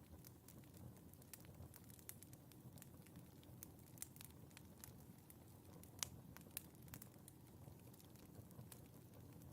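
Wood fire burning in a fireplace, crackling softly: scattered sharp pops and snaps over a low steady rumble of the flames, with one louder pop about six seconds in.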